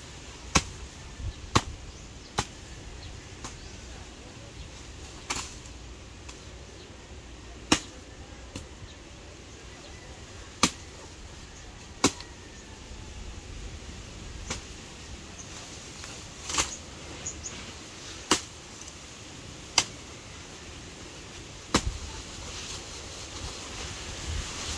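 A bolo knife chopping into a felled banana trunk: about a dozen sharp, short strikes at an irregular pace, one to three seconds apart.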